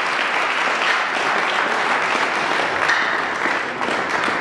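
An audience applauding, steady clapping from many hands.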